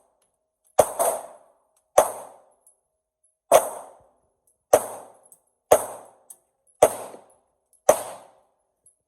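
Pistol shots fired at a steady, unhurried pace, about eight in all, roughly one a second with two close together near the start. Each crack trails off in echo.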